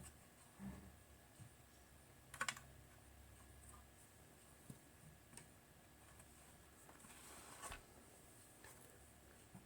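Near silence with a few faint clicks and taps from small parts of a multimeter being handled during disassembly. The loudest is a quick cluster of clicks a little over two seconds in, with a softer scrape near the end.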